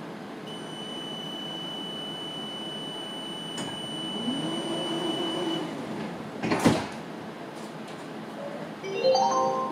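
Tram door-closing warning: a steady high beep for about five seconds, with the door mechanism humming under its latter part, then the doors shutting with one loud thump. Near the end a chime of rising notes starts, the tram's announcement signal.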